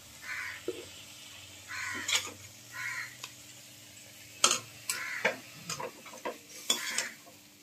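Metal spatula scraping and knocking against a steel kadhai as stir-fried sweet corn is scooped out onto a plate: a string of sharp scrapes and clinks, the loudest about four and a half seconds in.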